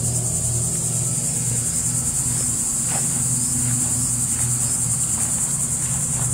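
Steady, high-pitched buzzing of insects in the summer heat, with a low steady hum beneath it.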